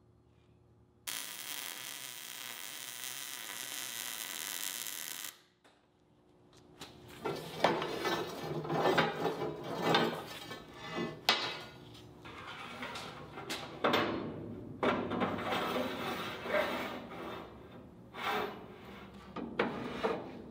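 MIG welding crackle, steady for about four seconds and cutting off abruptly. This is followed by irregular clinks, knocks and scrapes of steel parts and tools handled on a steel welding table.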